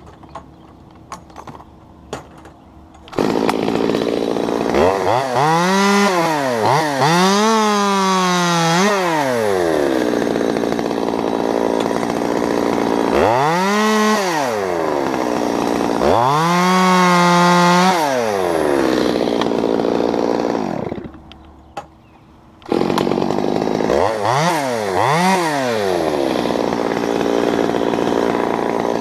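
Gas chainsaw starting about three seconds in and being revved up and down several times, settling back to idle in between. It cuts out about 21 seconds in, then fires up again about two seconds later and is revved twice more.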